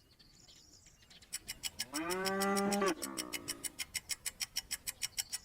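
A cow mooing once, about two seconds in: one long low call that rises and then falls. A rapid, steady ticking, about six ticks a second, runs under it and starts just over a second in.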